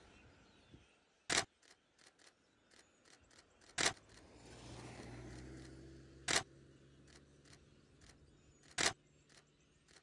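Camera shutter clicking four times, evenly about every two and a half seconds, each a short sharp click.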